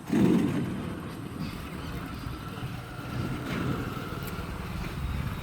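A motor running steadily with a low hum, and a louder burst of noise in the first half-second.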